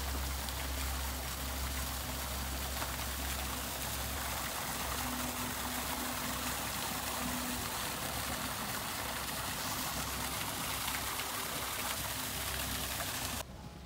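Water running and splashing from a mosaic-tiled fountain tower into a stone pond and channel, a steady rushing noise that cuts off near the end.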